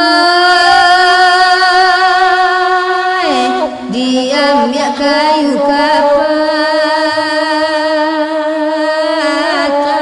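Slow traditional Minangkabau saluang music: one melody line of long, wavering held notes, with a falling slide about three seconds in and quick ornamented turns after it.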